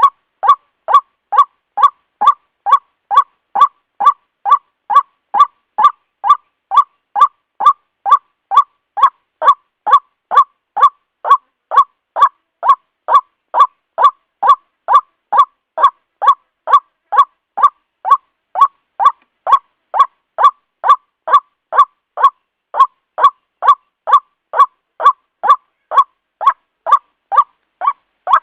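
White-breasted waterhen (ruak-ruak) call, one short note repeated over and over in an unvarying rhythm of about two a second.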